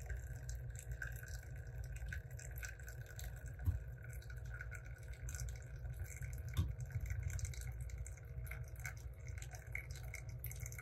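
Espresso trickling faintly from a Flair Pro 2 manual lever espresso maker into a glass cup, mid-shot at a steady pressure of about 7 bars, with a couple of small clicks.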